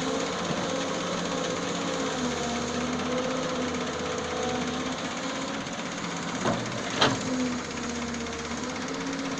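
Doosan 140 excavator's diesel engine running steadily, with two sharp knocks about half a second apart roughly two-thirds of the way in.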